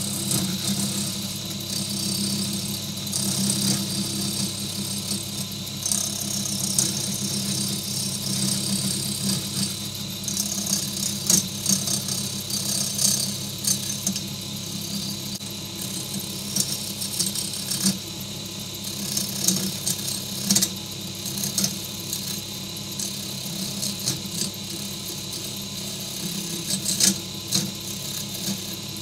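Low-end wood lathe running with a wood blank spinning on it, its motor giving a steady hum, while a turning tool cuts the blank with an uneven scraping, rattling hiss that comes and goes.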